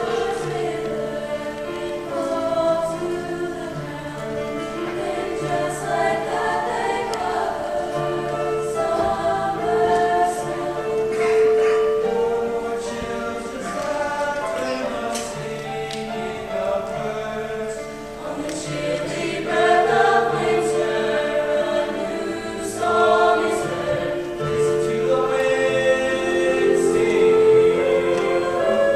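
A high-school mixed choir of men's and women's voices singing together in sustained, changing chords.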